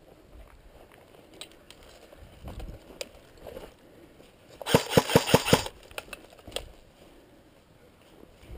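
Airsoft gun fired close by in a quick string of about six shots, a little under a second long, about five seconds in. Faint clicks and knocks of movement are heard around it.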